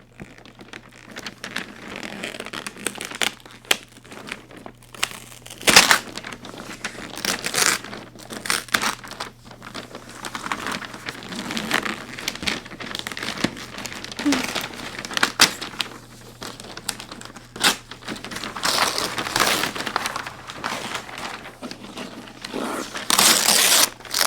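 A large box being opened by hand: irregular crinkling, rustling and tearing of paper and packaging, broken by sharp snaps, the loudest about six seconds in and again near the end.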